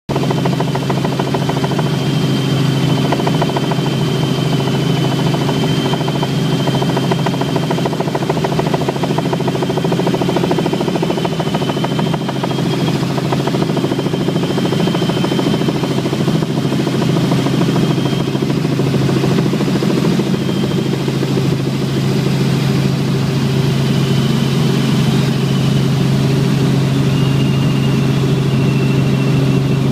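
Helicopter heard from inside the cabin on approach to a glacier landing: a loud, steady low drone, with a thin high whine that wavers above it.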